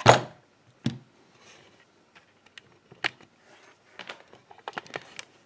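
Sharp clicks and knocks of a metal padlock and tools being handled: a loud knock at the start and another about a second in, then scattered lighter clicks.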